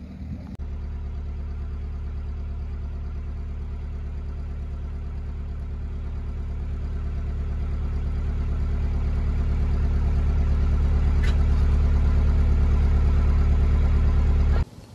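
Narrowboat engine running steadily at idle, growing gradually louder over the second half, with a single sharp click about eleven seconds in. It cuts off abruptly near the end.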